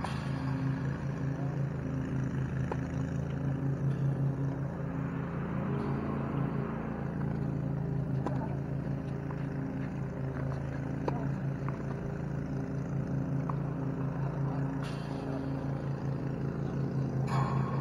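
Steady low motor hum with a fast flutter, like a small engine running. Faint pops of tennis balls struck by rackets come now and then, one about eight seconds in.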